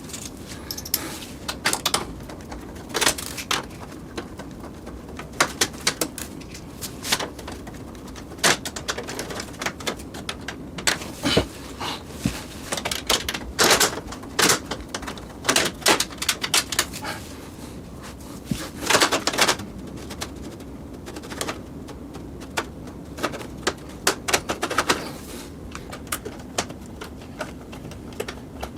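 Irregular clicks and knocks of hardware being handled while working inside a PC case, some in quick clusters, over a steady low hum.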